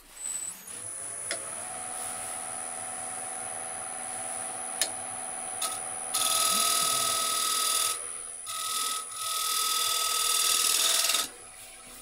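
Wood lathe running with a steady tone while a turning tool is held against the spinning wooden plate, scraping and cutting in two passes of a few seconds each. The second pass stops abruptly near the end.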